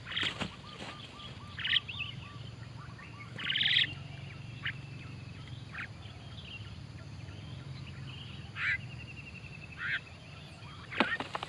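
Starlings calling: several loud, harsh squawks about half a second each, scattered through, with a quick run of small rising notes early and thin trilling notes between them.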